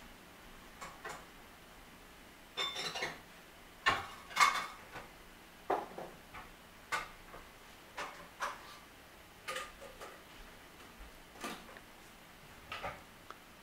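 Passing double-stack container train giving irregular sharp metallic clicks and clanks against a quiet background, with a cluster of louder clanks around four seconds in.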